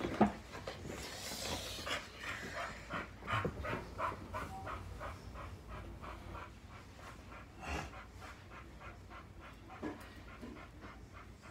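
A large dog panting rapidly, about three breaths a second. A loud thump comes just after the start.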